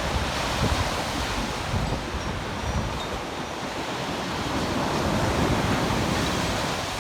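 Sea surf washing onto the beach: a steady rushing noise that swells about five seconds in and then eases, with wind buffeting the microphone.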